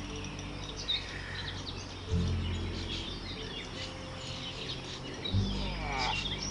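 Background music of low sustained chords, a new chord struck about two seconds in and again near the end, with small birds chirping over it.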